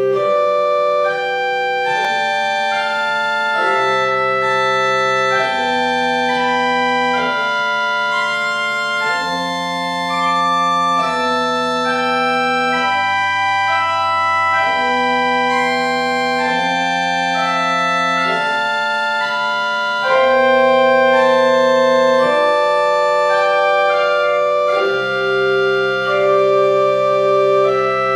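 Small two-manual pipe organ playing a pedal exercise. Held chords on the manuals sound over a pedal bass line of long, even notes that change about every two seconds.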